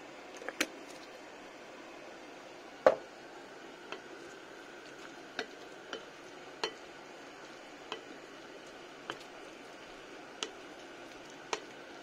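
A wooden spoon stirring and tossing cubed potatoes, leeks and bacon in a glass mixing bowl, knocking against the glass about once a second. The loudest knock comes about three seconds in.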